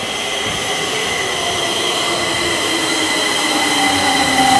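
Metro train running into the station: several steady whining tones with a lower tone sliding slowly down, the whole sound growing steadily louder.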